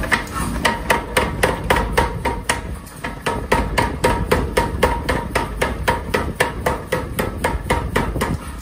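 Mechanical power hammer rapidly striking a red-hot axe head held in tongs, about four blows a second, each with a short metallic ring.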